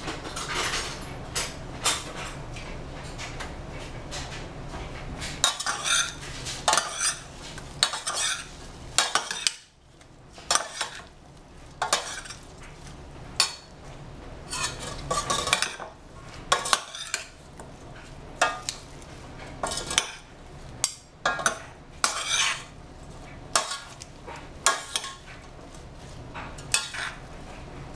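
Two metal spoons clinking and scraping against a stainless steel saucepan as a leafy salad is tossed, in repeated irregular strokes with a short pause near the middle.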